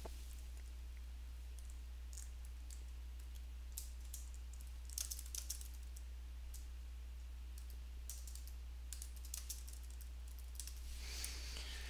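Computer keyboard typing: a few short, scattered runs of key clicks, over a steady low hum.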